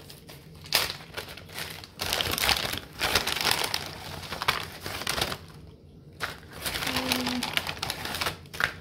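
Thin plastic bag crinkling in irregular bursts as a hand rummages through the crackers inside it.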